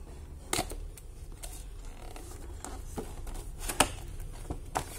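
Hands peeling tape off a cardboard action-figure box with a clear plastic window and opening it: scattered crackling and clicking of the plastic and cardboard, with a few sharper clicks, one about half a second in and two near the end.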